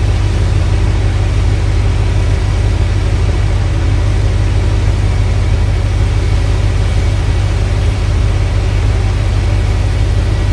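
Off-road vehicle engine running steadily at low revs, a heavy low rumble with no change in pitch.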